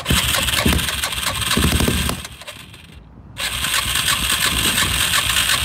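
Electric starter cranking a Suzuki LT-Z400 quad's single-cylinder engine in two attempts of about three seconds each, with a short break between, each stopping abruptly.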